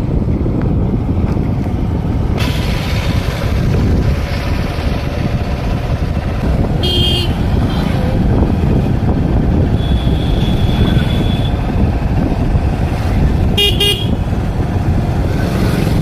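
Steady road-traffic rumble heard from a moving vehicle, with vehicle horns tooting briefly about seven seconds in and again in a quick series of short toots near the end.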